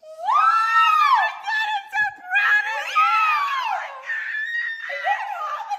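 Two women screaming and shrieking with joy, high-pitched voices rising and falling and overlapping, in excited reaction to good news.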